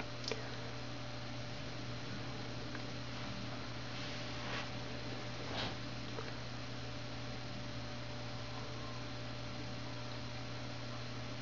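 Steady low electrical hum with a few faint high tones over it, broken only by three faint brief clicks.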